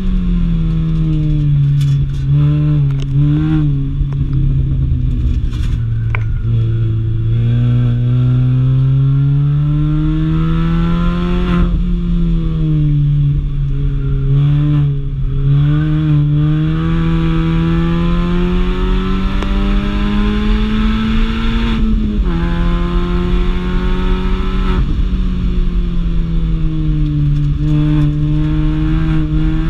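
Mini Cooper engine driven hard on a race track, its pitch climbing under acceleration and sinking as it slows, with two sudden drops at gear changes, over steady road and wind noise.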